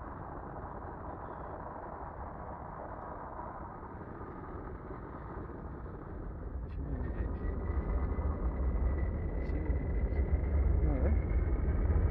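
A vehicle heard from on board as it pulls away and picks up speed. A steady rumble grows steadily louder from about halfway through, with a faint whine slowly rising in pitch.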